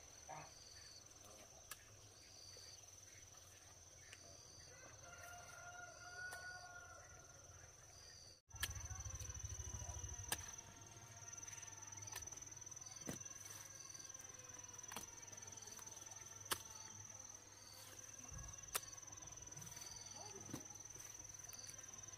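Faint countryside ambience: a steady high-pitched insect drone, a short high note repeating about once a second, and scattered chirps and light clicks.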